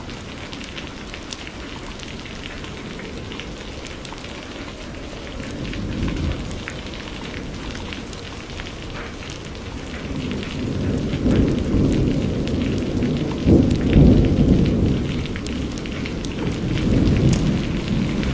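Steady rain with individual drops ticking. From about halfway a low rumble of distant thunder builds in slow swells, loudest about three quarters of the way through.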